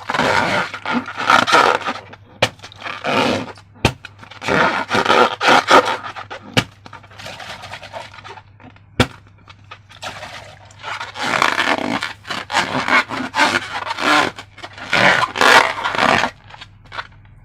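Slime and balloons being handled and worked by hand: irregular scraping, rubbing and squishing noises, with a few sharp clicks spread through.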